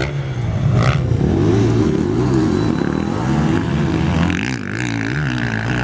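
Motocross bike engine revving up and down again and again, its pitch rising and falling with the throttle.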